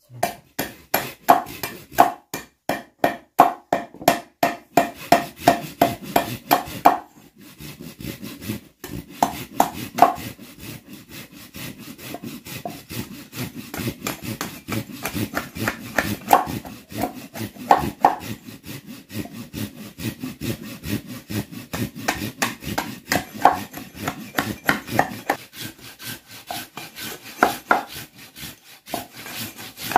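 Hand saw cutting wood with rapid back-and-forth strokes, mixed with sharp chops of a machete into wood. The strokes are loud and regular for about the first seven seconds, then steadier and quieter, with a louder knock now and then.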